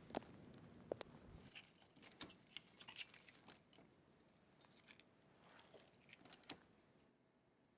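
Two sharp clicks, then a couple of seconds of light, high-pitched jingling and rattling that thins out into a few scattered clicks and stops.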